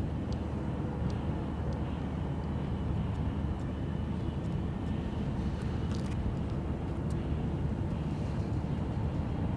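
Steady low rumble and hum of the cruise ship Nautica's engines as she sails past, with a few faint ticks about halfway through.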